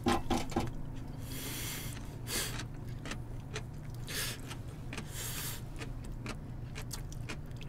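Eating at the table: scattered small clicks of chopsticks, bowls and chewing mouths, with a few short breathy hisses in the middle, over a steady low room hum.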